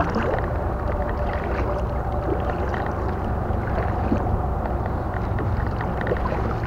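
A kayak being paddled: water swishing and dripping off the paddle blades, over a steady low rumble.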